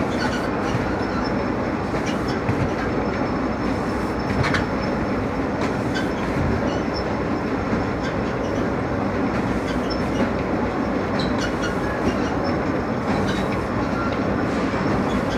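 Steady mechanical rumble and rattle of a cement-bag loading conveyor running, with scattered clicks and knocks.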